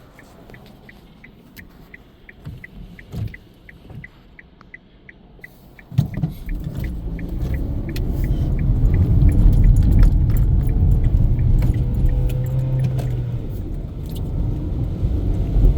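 Turn-signal relay ticking in the cabin of a Hyundai, about three clicks a second. About six seconds in, the car pulls away: engine and road rumble come up suddenly and build while the ticking fades.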